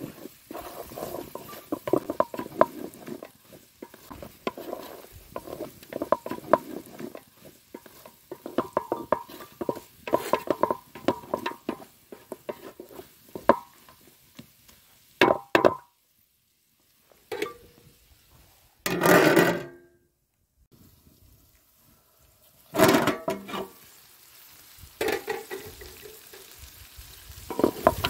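Wooden spatula stirring and scraping frying chicken in a large aluminium pot over a campfire: rapid clicks and scrapes of wood on metal over a sizzle. Partway through the stirring breaks off into a few separate, louder scrapes.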